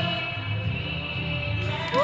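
A woman singing to acoustic guitar accompaniment, holding sung notes over the guitar's chords.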